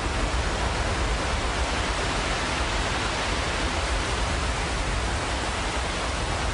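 Rushing river water, a steady loud rush with a deep rumble underneath, from a fast, swollen river.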